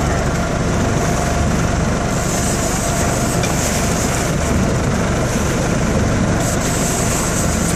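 Boat motor running steadily with wind noise on the open water.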